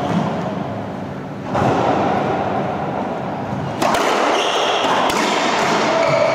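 Racquetball being struck in a doubles rally: a sharp smack about four seconds in, as the ball is served, and another about a second later.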